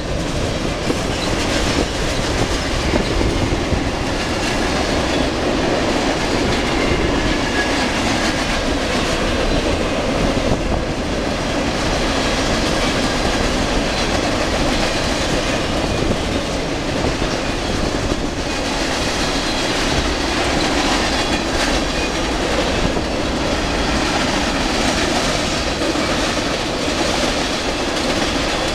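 Freight train cars, covered hoppers and tank cars, rolling past close by: a steady rumble of steel wheels on the rails with occasional clacks.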